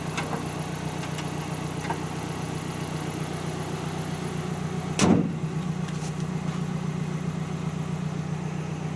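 Nissan S13 Silvia's four-cylinder engine idling steadily, running smoothly after a misfire repair, with one loud knock about five seconds in.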